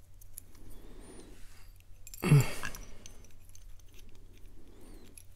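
Small metal clicks and scrapes of a steel lock pick worked inside a brass lock cylinder, which is turned in the hands. About two seconds in there is one louder, brief handling noise.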